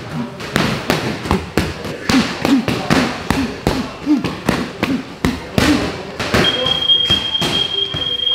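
Boxing-gloved punches smacking into focus mitts in quick, irregular succession, with more strikes on pads and heavy bags around the gym. A steady high tone comes in near the end.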